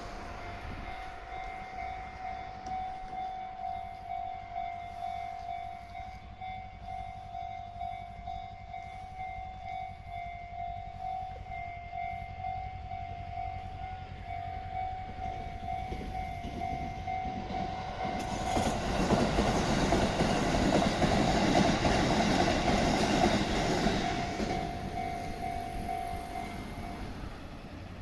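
Electronic railway level-crossing warning bell ringing with repeated dings, while a Keisei Matsudo Line electric train approaches and passes. The train is loudest about two-thirds of the way through, and the bell stops shortly before the end.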